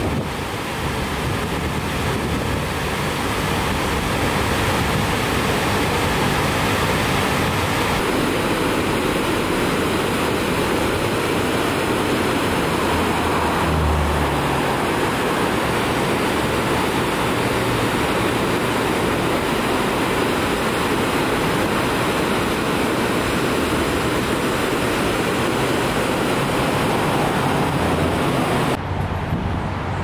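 Water rushing over the falls at Dundee Dam on the Passaic River: a loud, steady, even rush with no break. Its character shifts at about eight seconds, and near the end the higher hiss suddenly drops away.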